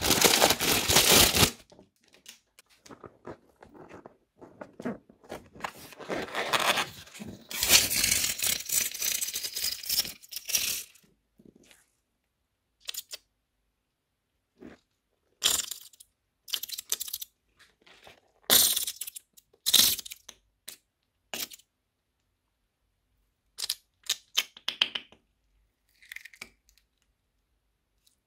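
Foam-bead bricks (floam) crackling and crunching as fingers squeeze them, loud at the start and again for several seconds mid-way. Then blue slime is stretched and pulled over the bricks, giving a string of short sticky crackles and tearing snaps.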